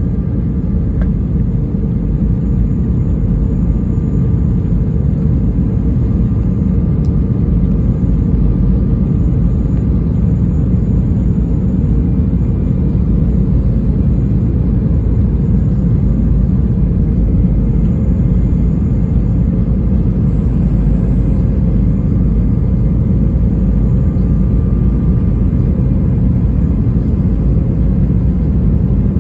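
Steady cabin noise of a Sukhoi Superjet 100 airliner in flight, heard from inside the cabin: the low rumble of its SaM146 turbofan engines and the rush of air over the fuselage, during the descent to landing. A faint steady hum sits above the rumble.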